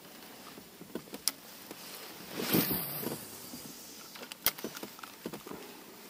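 Spinning rod and reel being handled aboard an inflatable boat: scattered sharp clicks and a short louder rustling burst about two and a half seconds in.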